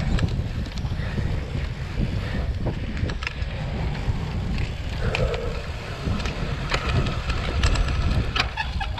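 Wind buffeting the microphone while a cyclocross bike rides fast over bumpy dirt, with a steady low rumble of tyres on the ground and scattered sharp clicks and rattles from the bike.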